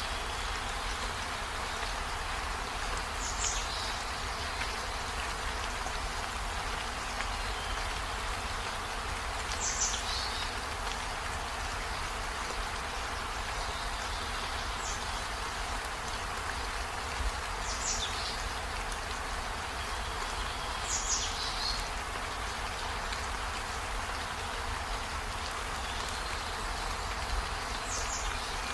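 Steady hiss over a low hum, with a short high chirp falling in pitch six times at uneven gaps.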